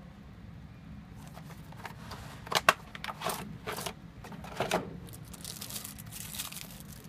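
Cardboard box and clear plastic packaging tray being opened and handled: several sharp scrapes and clacks, loudest about two and a half seconds in, then crinkling of thin plastic wrap near the end.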